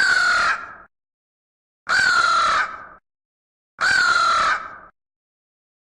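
Crow cawing: three harsh caws about two seconds apart, each lasting about a second.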